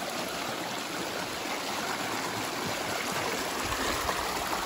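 Shallow rocky stream running, water splashing down a small cascade between boulders in a steady rush.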